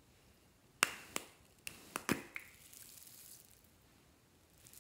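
Plastic lid of a small floam tub being pried off with about five sharp clicks and snaps over a second and a half, the first the loudest. Then a soft high rustle as the foam beads start to spill out.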